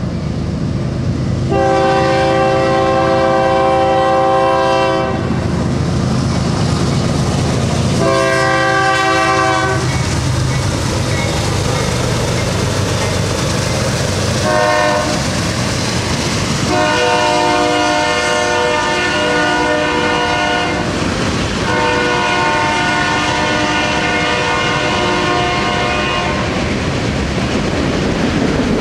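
Freight locomotive air horn sounding a chord, blown in five blasts: two long, one short, then two more long, the pattern of a grade-crossing signal. Under it, the locomotive and train rumble past, with wheels clacking over rail joints as the cars roll by near the end.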